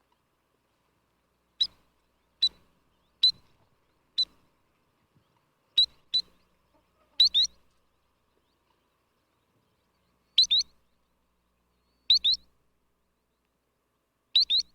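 Sandpiper giving short, sharp, high calls spaced a second or more apart. The first six are single notes; from about seven seconds in they come as quick double notes.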